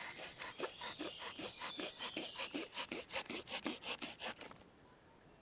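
Wood saw blade of a Victorinox Swiss Army knife cutting through a wooden stick in quick, even rasping strokes, several a second, stopping about four and a half seconds in.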